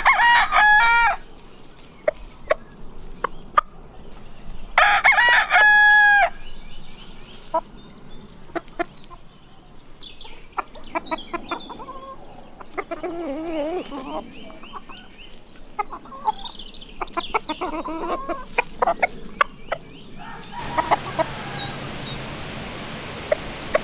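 Chickens: a rooster crowing twice, once right at the start and again about five seconds in, followed by a stretch of scattered clucking and short calls. From about twenty seconds in, only an even outdoor hiss remains.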